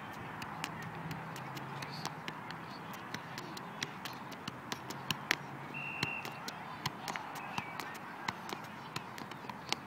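Soccer ball being juggled: a string of light, irregular taps as the ball bounces off a child's feet and thighs, about two to three a second, over steady outdoor background hiss.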